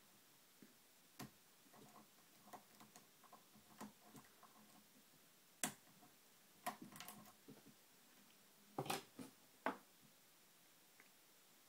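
Faint, irregular clicks and ticks of a hook pick and tension wrench working the pins of a TrioVing oval pin-tumbler cylinder, with sharper clicks about a second in, in the middle and near the end.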